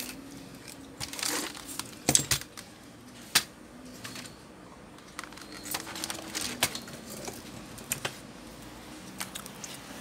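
Scattered sharp clicks and light taps of small hard objects handled on a repair workbench, the loudest a few seconds in.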